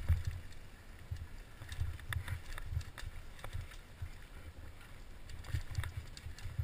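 Downhill mountain bike rolling over a rough dirt trail: irregular low thumps and rumble with many sharp clicks and rattles as the bike and rider jolt over bumps, picked up by a helmet-mounted camera.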